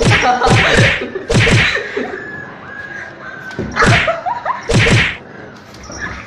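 A kitten and a puppy squabbling, heard as short, sharp, hissy animal bursts: four in quick succession, then two more after a pause of about two seconds.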